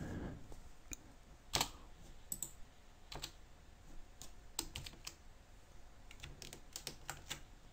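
Faint, irregular clicks of computer keys, single taps spaced unevenly rather than steady typing, the sharpest about a second and a half in and a loose cluster later on.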